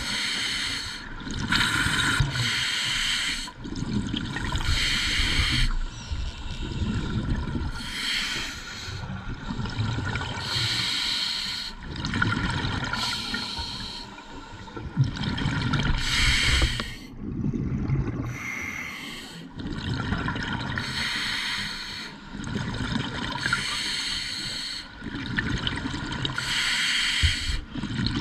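Scuba diver breathing through a regulator underwater: a hissing inhale alternates with the low rumble of exhaled bubbles, one breath every few seconds.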